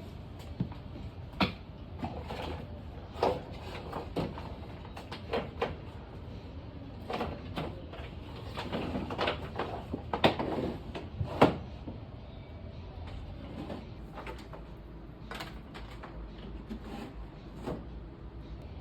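Scattered knocks and clicks, a dozen or so at irregular intervals and busiest in the middle, over a steady low hum.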